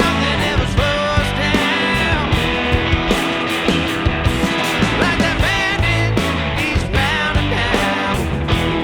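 Full rock band playing: electric guitar with bending lead lines over bass and a steady drum beat.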